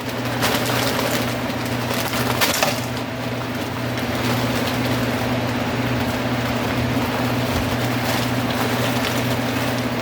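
Vegetables frying in a pan: a steady crackling sizzle, with two brief clatters in the first few seconds and a low electrical hum underneath.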